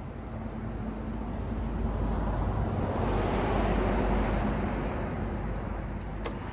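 A road vehicle passing by: its noise swells to a peak about halfway through, then fades, over a steady low hum. There is a single sharp click near the end.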